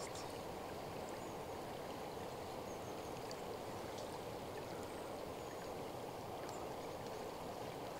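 Steady, muffled rush of fast-flowing river water, with a few faint ticks.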